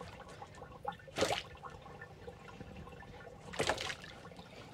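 A prairie dog splashing in shallow bathwater in a tub: two short splashes, one about a second in and a longer one near the end.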